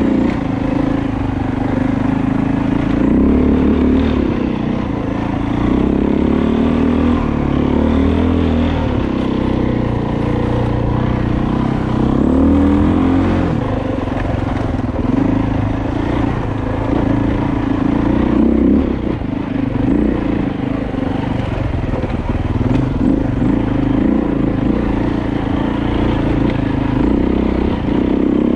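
Dirt bike engine running under constantly changing throttle, its note rising and falling every second or two as the bike climbs a rocky single-track trail, heard close from a helmet camera.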